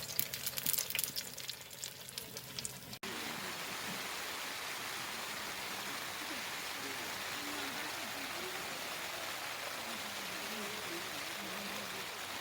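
Crackling, patter-like clicks for about three seconds. After a sudden cut comes a steady hiss of water noise, like rain or a running stream, with faint voices low underneath.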